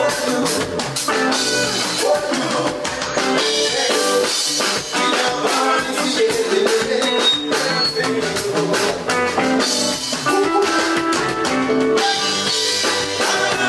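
A live band playing through a stage PA at a sound check: drum kit, guitar and bass.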